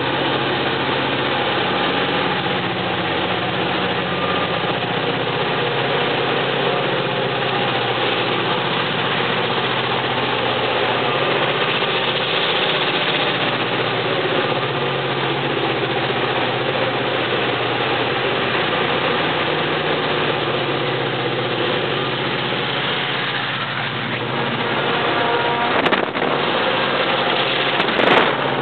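Several diesel-electric locomotives barking as they work hard hauling a grain train up a grade, a dense steady engine throb throughout. There are a couple of sharp knocks near the end.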